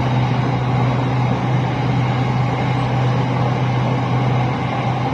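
Steady low hum and rumble of an electric commuter train (SRT Red Line), unchanging throughout.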